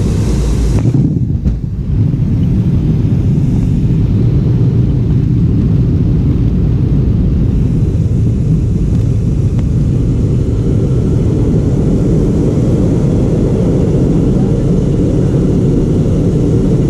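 Steady low rumble inside the cabin of an MD-88 airliner taxiing on the ground, its rear-mounted Pratt & Whitney JT8D engines near idle. A louder hiss cuts off abruptly about a second in.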